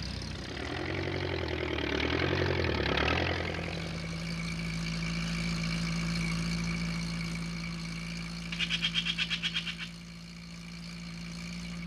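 Cartoon engine sound effect of a vehicle driving off: for the first few seconds the engine chugs with a pitch that wavers up and down, then from about four seconds in it settles into a steady hum. A brief rapid trill sounds around nine seconds in.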